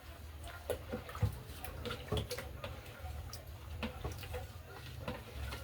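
Irregular light clicks and knocks of kitchen utensils and cookware during porridge making, over a steady low hum.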